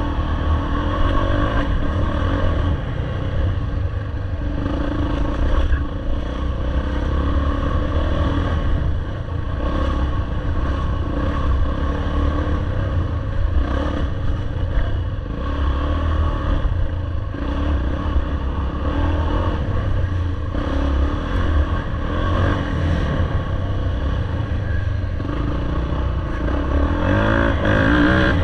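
Off-road dirt bike engine running on a trail ride, its pitch rising and falling with the throttle. It revs up near the end.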